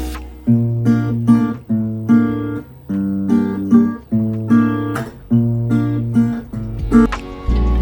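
Background music: acoustic guitar with a steady bass line, strummed and picked in a bright, rhythmic pattern.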